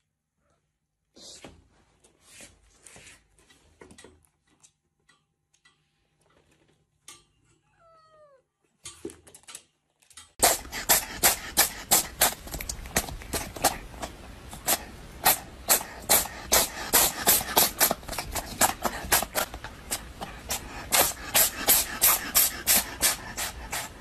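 Faint scattered taps, then from about ten seconds in a cat licking and grooming a person's hair right at the microphone: loud, rapid rhythmic strokes, about three to four a second.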